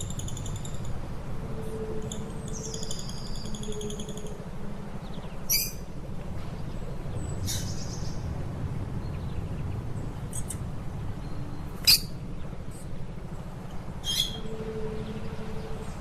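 Lovebirds calling: a high twittering trill, then a few separate shrill chirps, the sharpest about twelve seconds in, over a steady low hum.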